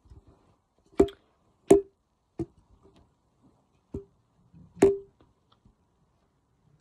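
Five sharp knocks, irregularly spaced over about four seconds, each with a short ring.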